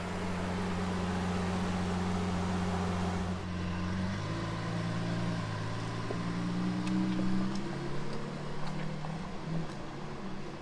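Lamborghini Sián FKP 37's V12 engine idling steadily. About three and a half seconds in, the sound changes to the engine pulling away at low revs, its pitch rising gently, with a few faint ticks.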